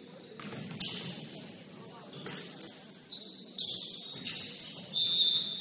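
Basketball shoes squeaking on a gym floor in short high-pitched squeals, mixed with a few sharp knocks; the longest, loudest squeal comes near the end, over a low murmur of voices.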